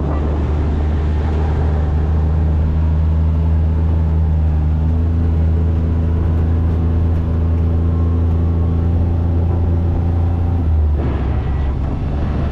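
Side-by-side utility vehicle's engine running steadily under way on a dirt track, heard from inside its open cab, with the engine note stepping up a little about five seconds in.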